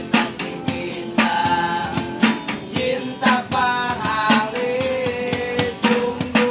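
A busker's song: a voice singing drawn-out notes over a regular beat of drums and jingling percussion.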